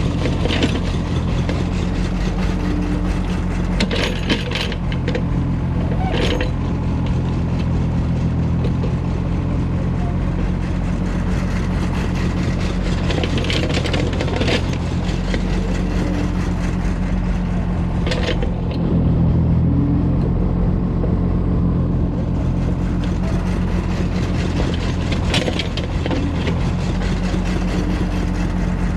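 Kobelco excavator loading soil onto a small farm truck: diesel engine running steadily, with short sharp clanks every few seconds. It gets louder for a few seconds about two-thirds through.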